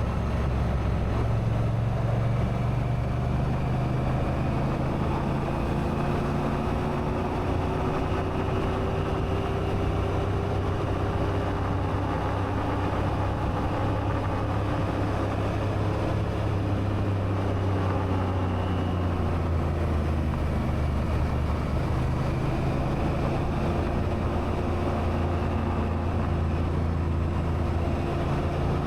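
Honda Africa Twin's parallel-twin engine running steadily while riding, with wind rushing past. The engine note sags and then climbs again about twenty seconds in.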